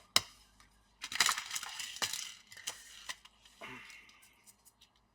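A metal laptop hinge being handled and set into place: a sharp click, then about two seconds of scraping and small metallic clinks that fade away.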